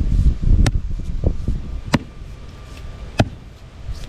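Three sharp strikes, evenly spaced about a second and a quarter apart, over a low rumble that fades after the first second or so.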